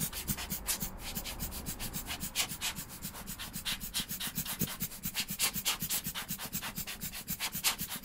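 Hand-squeezed rubber dust blower bulb puffing air in quick repeated bursts, several a second, to blow dust off a calculator screen.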